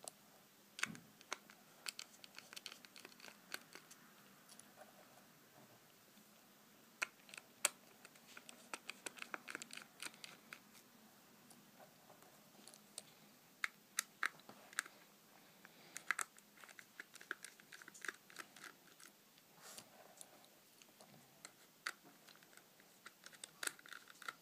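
Small Phillips screws being undone with a small screwdriver in a TomTom XL GPS unit's metal screen frame: faint, scattered clicks and scrapes of the bit and screws, in short clusters with pauses between.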